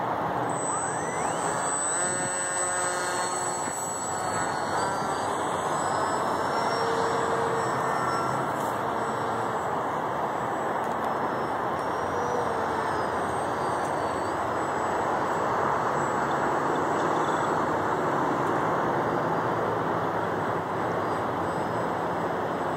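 Electric RC plane's BlueWonder 1300Kv brushless motor driving a GWS 8060 propeller, a high whine that glides up and down in pitch as the throttle changes, over a steady rushing noise.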